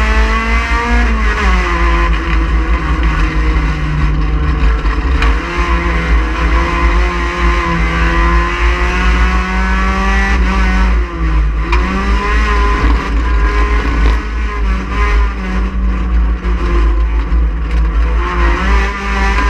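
Race car engine running hard at high revs. The pitch drops about a second in, holds, then dips briefly about eleven seconds in before climbing back up, over a heavy low rumble.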